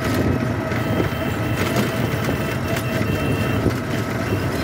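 Steady running noise of a moving road vehicle: a low rumble of engine and tyres with light rattling ticks, heard from on board.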